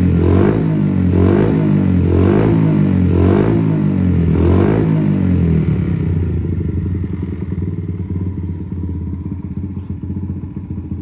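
Honda Gorilla AB27's 49cc four-stroke single-cylinder engine, fitted with a Keihin carburettor and a full aftermarket exhaust, being revved in short throttle blips about once a second. Each blip rises and falls in pitch. After about five and a half seconds it drops back to a steady, quieter idle.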